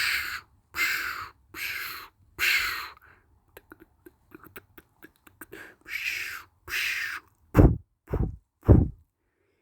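A person making scary noises with the mouth: about six breathy, hissing exhalations, each sliding down in pitch, then three deep booming thumps in quick succession near the end.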